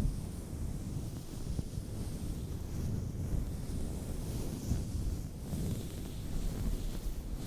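Steady low rumble of air noise on a close microphone.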